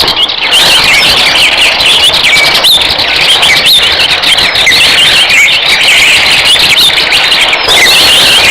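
A flock of small birds chirping loudly, many rapid overlapping calls forming a dense, continuous twittering.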